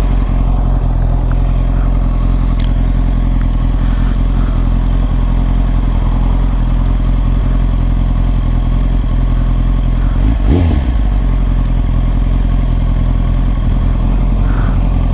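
Motorcycle engine running steadily at an even speed under way, with one brief dip and rise in pitch about ten seconds in.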